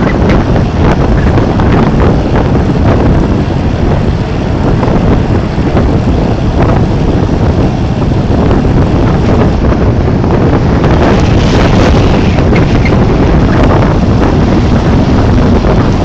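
Strong wind in a blizzard blasting across the microphone: a loud, continuous low rumble with gusts, a little stronger in the last few seconds.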